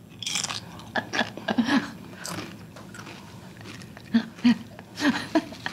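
Tortilla chip being bitten and chewed: a crisp crunch right at the first bite, then several smaller crunches as it is chewed.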